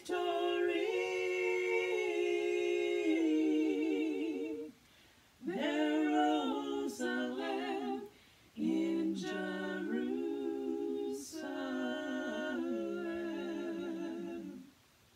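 Three women's voices singing a cappella in harmony, the closing phrases of an Easter gospel trio song: three long held phrases with vibrato, the last one ending shortly before the end.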